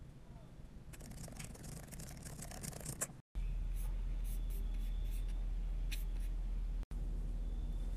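Faint scattered clicks and rustling, then after an abrupt cut a steady low electrical hum with a few faint clicks, broken by a brief dropout near the end.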